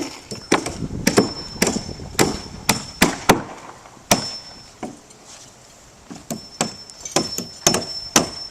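Repeated hammer blows on wood, about two strikes a second, pausing briefly near the middle.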